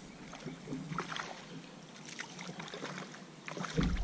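A hooked bass splashing at the water's surface beside the boat during the fight, in a series of short splashes, with a louder splash and a low thump near the end.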